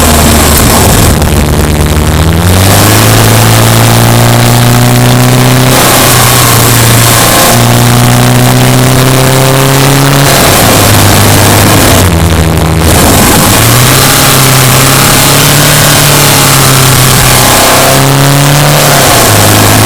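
Subaru Impreza Sport's flat-four engine pulling under throttle, its note climbing and holding, then dropping sharply several times as the revs fall away and build again.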